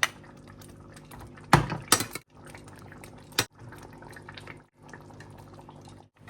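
Cooked jackfruit pieces being added to simmering curry gravy in a pot: wet plops and splashes over a low bubbling, with a few sharp knocks of utensils against the pot, loudest about one and a half to two seconds in.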